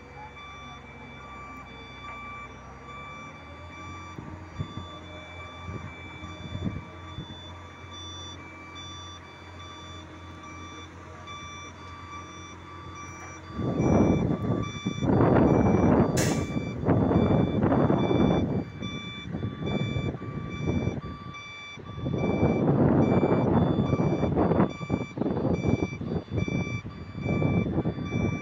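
A mobile crane's warning beeper pulses steadily over the low running of the crane's engine while it hoists a concrete bridge girder. From about halfway, loud irregular bursts of rushing noise come in on top and become the loudest sound.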